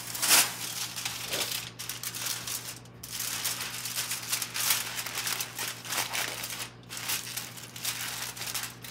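Aluminium foil crinkling and crackling as it is folded over and crimped shut into a steam pouch, in irregular rustling handling sounds.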